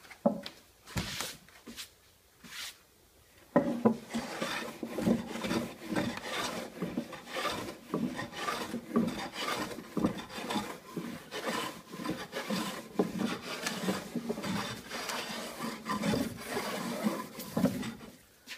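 Japanese hand plane (kanna) worked in rapid, repeated strokes across a wooden tabletop, taking fine shavings for the final smoothing of the surface. A few separate knocks come first; the continuous planing starts about three and a half seconds in and runs until just before the end.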